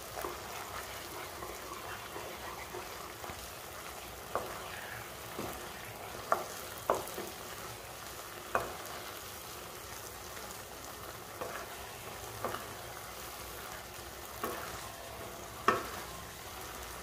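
Banana halwa sizzling in ghee in a non-stick kadai while a wooden spatula stirs it, with a few sharp knocks of the spatula against the pan. The halwa has thickened into a mass and the ghee is separating from it, the sign that it is nearly done.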